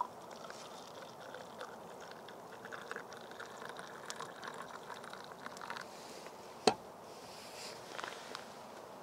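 Faint outdoor ambience in a forest at dusk: a steady soft hiss with scattered small ticks, and one sharp snap about two-thirds of the way through.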